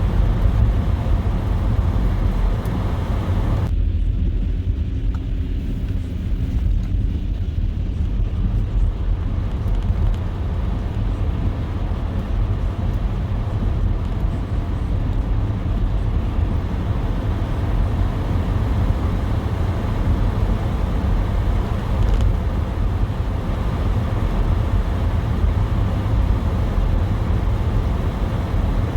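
Car driving on a snowy road: steady low rumble of engine and tyres with road hiss above it. The hiss drops away suddenly about four seconds in and builds back over the next several seconds.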